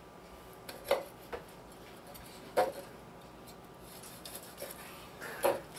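Chef's knife slicing through a cooked ribeye steak on a wooden cutting board, the blade knocking the board four times in sharp taps, louder near the middle and near the end.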